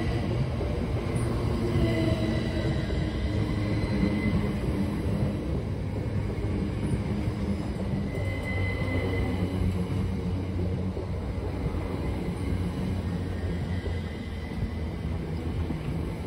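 Great Northern Class 387 electric multiple unit pulling out of the platform and running past, a steady low rumble of wheels on rail mixed with a faint motor whine.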